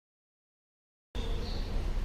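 Silence, then about a second in a steady low rumble of room noise starts abruptly.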